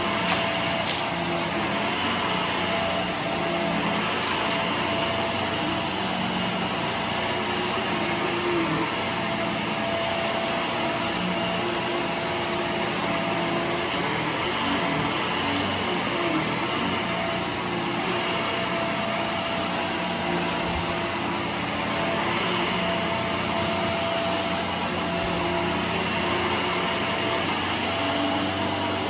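Vacuum cleaner running steadily with a constant whine, with a few sharp clicks in the first few seconds.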